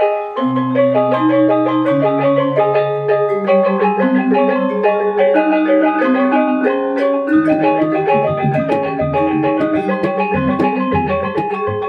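Balinese gong kebyar gamelan playing a tabuh for the Rejang dance: bronze gangsa metallophones struck with mallets in a fast stream of ringing notes, over long low bronze tones that come in about half a second in.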